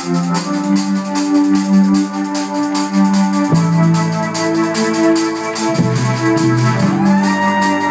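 A live band playing an instrumental intro: sustained electronic keyboard chords over a steady hi-hat beat, with the chords changing twice. Near the end a keyboard note slides up into a high held tone.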